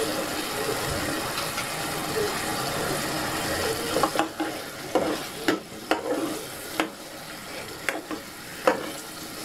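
Metal ladle stirring a pot of pork simmering in coconut milk, over a steady hiss. From about four seconds in the ladle knocks and scrapes against the pot in a string of sharp clinks, about seven, the loudest near the end.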